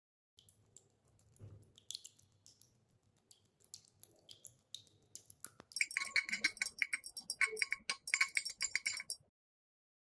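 Metallic clinking and clicking: scattered single clicks at first, then a quick, ringing run of clinks for about three and a half seconds from about six seconds in.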